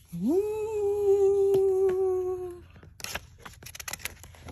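A woman's voice making a long ghostly "whooo" noise: it slides up at the start, is held for about two seconds while sinking slightly, then stops. Then paper rustles as a book page is turned.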